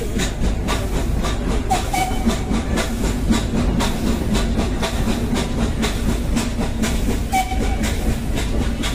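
Steam-hauled Nilgiri Mountain Railway train running uphill, heard from an open coach doorway: a steady, quick, even beat of steam exhaust and coach rattle over a low rumble from the running gear. Two brief high squeals sound about two seconds in and again near the end.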